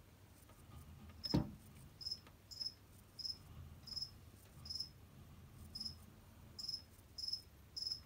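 A run of about nine short, high chirps, all at one pitch and spaced unevenly about a second apart or less, from a small animal. A single sharp knock about a second and a half in is the loudest sound.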